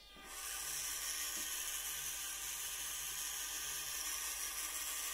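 1/18 FMS Atlas 6x6 RC truck's electric motor and geared drivetrain whirring as it spins up and runs at a steady speed.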